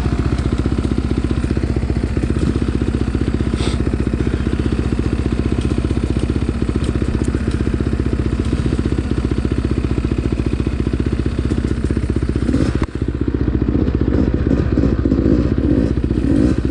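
Dirt bike engine idling steadily, with one brief dip in level about three quarters of the way through.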